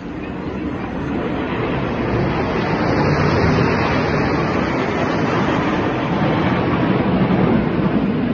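Jet engines of a formation of Alpha Jets flying past: a broad rushing roar that swells over the first few seconds and then holds steady and loud.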